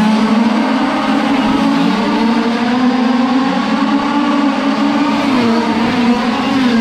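Several 1/5-scale RC race cars' small two-stroke petrol engines buzzing around a dirt oval together. Their pitch wavers up and down as the drivers ease off and get back on the throttle through the turns.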